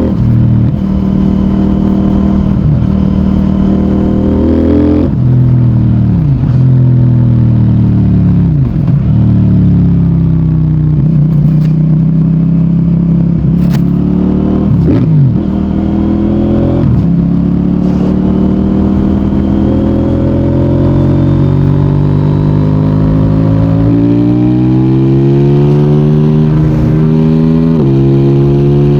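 CFMOTO 800NK Advanced's parallel-twin engine and exhaust under way, the revs climbing and dropping several times as the bike accelerates, shifts and slows, with a long rising pull in the second half that falls off sharply near the end. A couple of sharp cracks sound around the middle.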